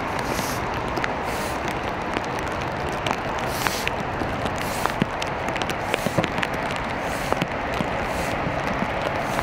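Steady rain falling on wet paving, a hiss of spattering with scattered drop ticks and a low rumble underneath. Footsteps scuff and splash on the wet stone about once a second.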